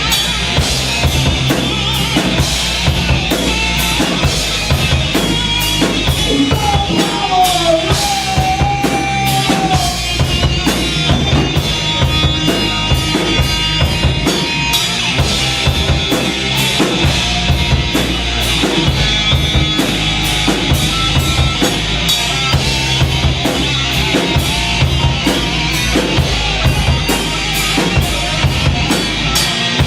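Rock band playing an instrumental passage, driven by a drum kit with kick and snare hits over a sustained bass. A melodic line bends up and down in pitch a few seconds in.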